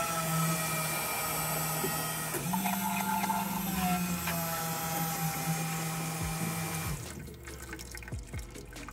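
A Chai Hai 4-flavour (4400-4SVM) chai vending machine running its rinse cycle. A pump hums steadily while water rushes through the machine and out of the dispenser spout. The hum steps up in pitch about two and a half seconds in and stops about seven seconds in, leaving faint drips.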